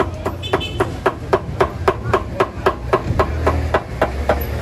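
Rapid, regular hammering, about four sharp blows a second in a steady rhythm, stopping shortly before the end.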